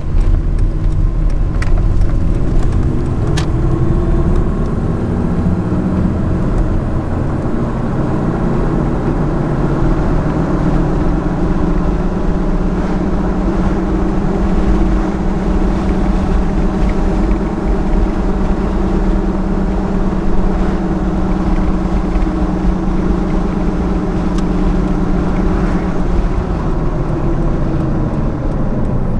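1999 Toyota Tacoma's 3.4-litre V6 engine humming with road noise, heard from inside the cab while driving. The engine note climbs over the first few seconds as the truck picks up speed, holds steady while cruising, and drops near the end as it slows.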